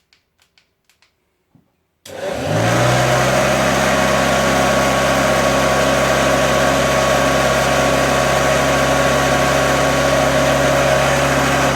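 Hoover 119 upright vacuum cleaner: a few faint clicks, then it is switched on about two seconds in, the motor spinning up quickly to a loud, steady run, a low hum under rushing air. It doesn't sound too healthy; the owner puts some of the noise down to the brush bar.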